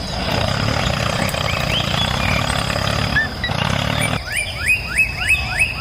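Outdoor ambience with birds: scattered chirps over a steady rushing background, then from about four seconds in a bird repeats a quick rising chirp roughly four or five times a second.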